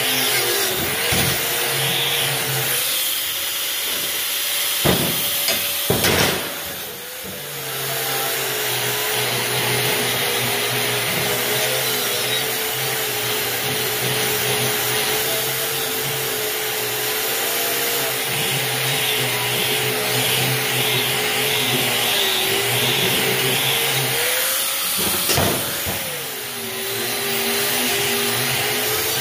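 Corded angle grinder with a wire wheel scrubbing rust and dirt off steel corn head parts, a steady motor whine over a rasping scrub. The whine rises briefly when the wheel comes off the metal, about six seconds in and again near the end, with a few sharp knocks around those moments.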